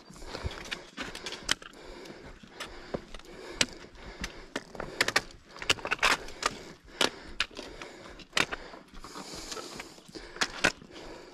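Footsteps on bare granite rock: irregular sharp taps and scuffs, one to three a second, as hikers pick their way over slabs and loose stones.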